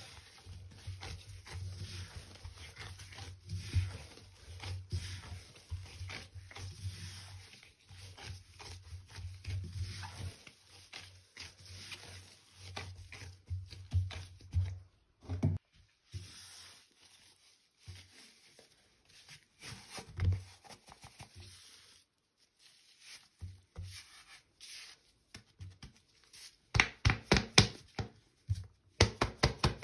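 Gloved hands kneading, squishing and rubbing a wet paste of water and recycled powder against the sides of a bowl, with a steady scratchy texture that thins out about halfway. Near the end comes a quick run of sharp knocks and taps as a container is handled over the paste.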